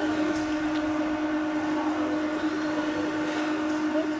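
A steady machine hum holding one pitch, like a small motor running.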